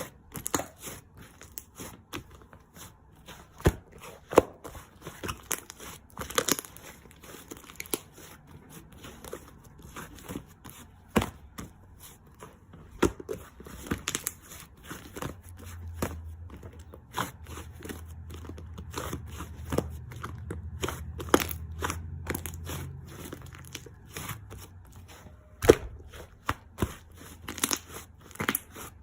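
Close crinkling, crackling and snapping sounds of something being handled or squeezed, with scattered sharp clicks and a low rumble in the middle stretch.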